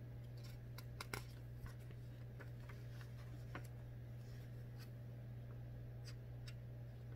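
Paper pages of a spiral-bound booklet being handled and turned: a scatter of soft rustles and crinkles, the loudest about a second in, over a steady low hum.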